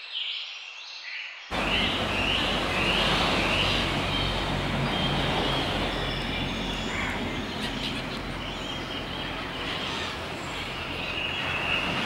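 Short bird calls over a quiet background, then about one and a half seconds in, a sudden switch to the steady wash of surf breaking on a beach, with terns and gulls calling over it in short repeated cries.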